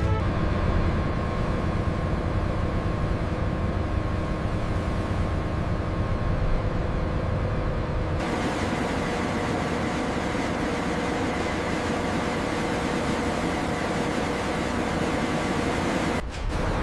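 Steady low mechanical rumble with a faint hum running through it. About eight seconds in, it shifts to a brighter, hissier noise.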